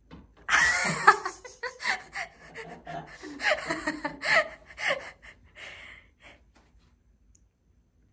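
A person laughing in breathy, choppy bursts with gasps, starting about half a second in and dying away after about six seconds.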